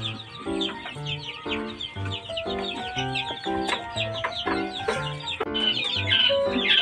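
Background music with a steady beat, with a flock of quails chirping busily over it; the chirping grows denser in the last second or two.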